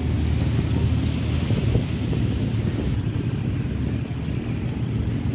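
A tour bus's diesel engine idling steadily, a low rumble with no revving.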